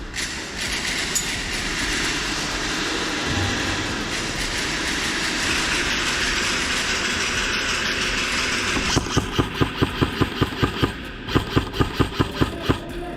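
A steady rushing noise, then, about nine seconds in, two bursts of rapid airsoft gun fire of about six shots a second, with a short pause between the bursts.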